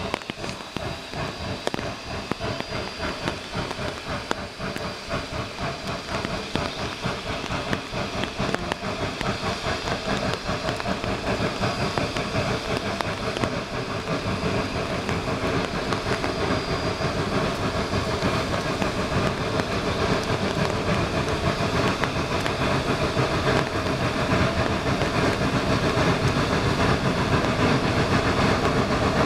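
Geared steam locomotive working toward the listener with rapid, continuous exhaust chuffs and steam hiss, growing steadily louder as it approaches.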